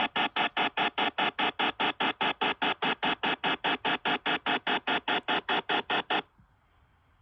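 Dial-up modem noise: harsh electronic bursts pulsing evenly about five times a second, cutting off abruptly about six seconds in and leaving a faint hiss.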